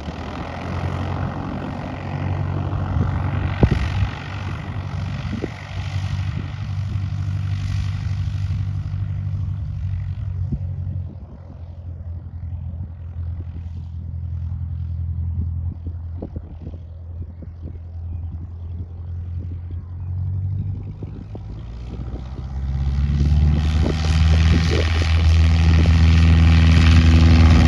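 Single-engine propeller light airplane running at low power while it taxis, then opening up to full power for the takeoff roll about 23 seconds in and growing much louder.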